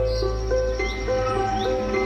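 Ambient background music with a short melodic phrase repeating about twice a second, with short rising chirps above it.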